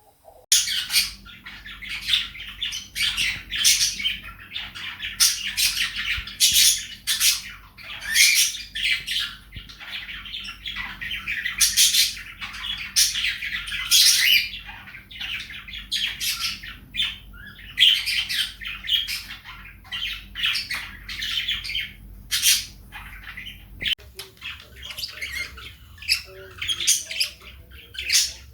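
Small pet parrots chattering and squawking, with many quick, sharp calls following one another almost without pause and a faint steady hum underneath.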